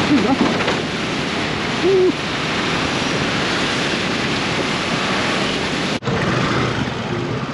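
Wind rushing over the rider's microphone mixed with traffic and road noise while riding a scooter slowly through a jam, with a short tone about two seconds in. The sound drops out for an instant about six seconds in.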